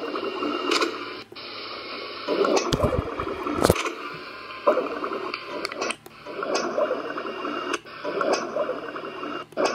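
A yellow Labrador's stomach gurgling: irregular wet rumbles that come and go every second or so, with a deeper low rumble about three seconds in and scattered sharp clicks.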